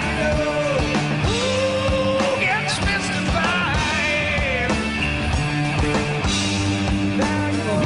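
Rock music with held bass notes under a sliding lead melody.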